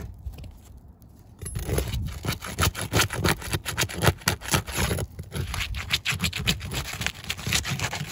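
A flat metal bar scraping under asphalt roof shingles, prying loose shingles that are stuck down. It comes as a quick run of short scrapes starting about a second and a half in, with a brief lull around five seconds.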